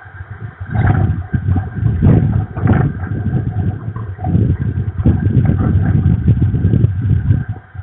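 Strong wind gusting across the nest camera's microphone: a heavy low rumble that swells and drops from moment to moment.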